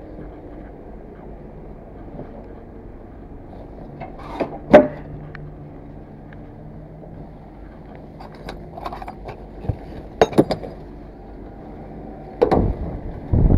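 Steel rear-door latches of a semi-trailer being worked by hand, with a loud metal clank about four and a half seconds in and more clanks around ten seconds and near the end, over the steady hum of the idling truck.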